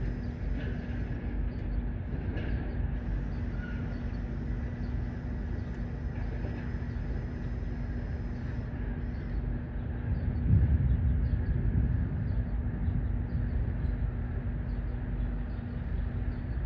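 Refrigeration units on a row of parked refrigerated trailers running, a steady hum over a low rumble. A louder low rumble swells about ten seconds in.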